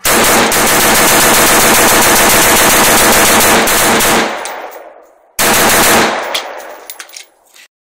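Rapid-fire shooting from a 5.56mm AR-15 rifle fitted with a muzzle brake, loud and fast. A long unbroken string runs about four seconds, then dies away, and a second short burst follows about a second and a half later and also fades.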